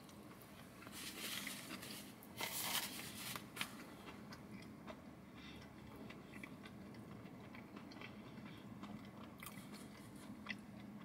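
A person chewing a mouthful of cheeseburger with crispy onion rings: faint crunching, a few louder crunches in the first few seconds, then softer chewing.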